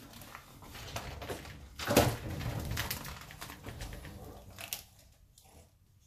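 Large python constricting a live rabbit: irregular knocks, scraping and rustling of its coils against the enclosure and the paper bedding, with one loud thump about two seconds in. It settles down near the end.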